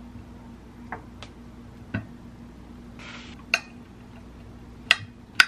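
A handful of light, sharp clicks and knocks at uneven spacing, as of small objects being handled and set down, the last two loudest near the end, with a brief hiss about three seconds in.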